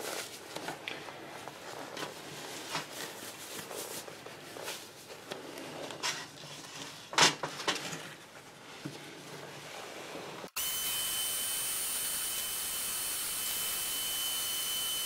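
Rustling and light knocks of knit safety gloves being pulled on and the tool being handled, then about ten and a half seconds in a Dremel rotary tool switches on and runs steadily with a thin high whine, its burr carving the charred pine owl.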